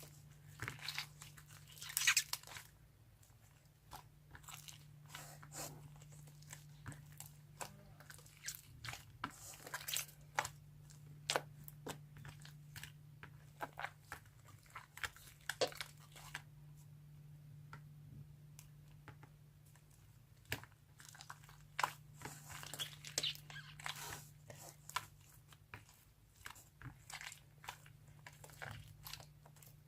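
Sponge slime being squeezed and pressed by hand, giving irregular crunchy crackles and small pops.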